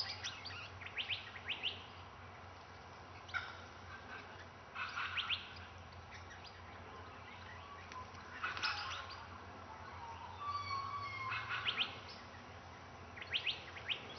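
Swift parrots calling in quick runs of high, sharp chirps, a burst every two or three seconds, over a faint steady low hum.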